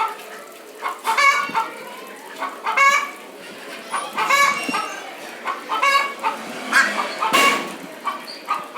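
Chickens calling in short, repeated clucks and squawks, one every second or so, with a brief harsh burst about seven seconds in.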